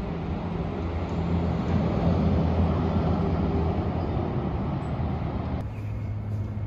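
Downtown street traffic with the low engine hum of a heavy vehicle passing; the hum swells over the first few seconds and then eases. The sound changes abruptly near the end.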